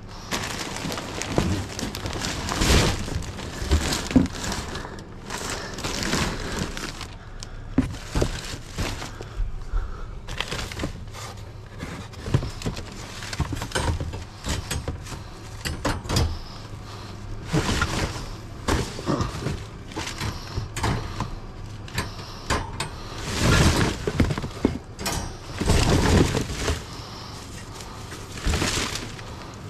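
Rummaging through a dumpster: plastic trash bags crinkling, cardboard boxes being shifted and a white metal wire shelf rattling as it is pulled free, with louder clattering twice near the end.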